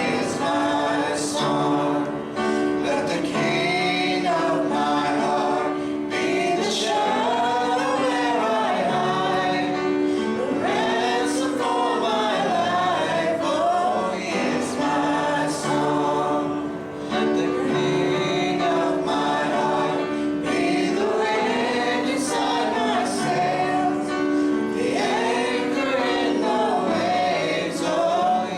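Congregational worship singing: a group of male and female voices singing a hymn together over steady instrumental accompaniment.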